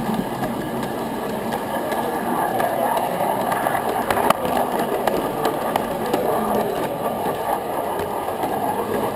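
Large-scale electric model train running along its track, a steady rolling rumble of wheels on rails dotted with small clicks, and one sharper click about four seconds in.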